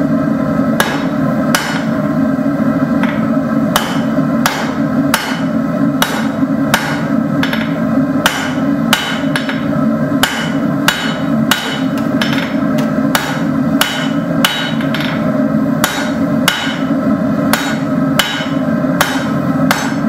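Hand-hammer blows on a hot 5/16-inch steel rod on an anvil, about two a second with a short pause near the start, each strike ringing briefly; the stock is being set down about three-quarters of an inch behind its tapered point. A steady low rushing noise runs underneath.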